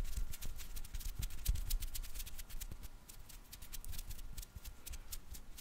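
ASMR hand sounds right at the microphone: fingers fluttering and skin rubbing, giving a dense run of crisp, irregular clicks and crackles. Low thumps and rumbles come from the hands moving close to the mic.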